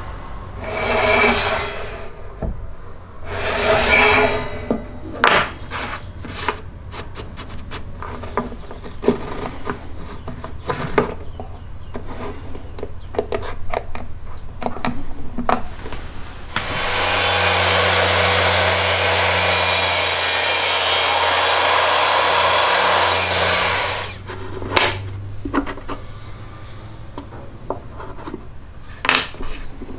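Wood being worked by hand: two rubbing strokes near the start, then scattered knocks and clicks of wood and tools being handled. A power tool then runs steadily for about seven seconds and stops abruptly.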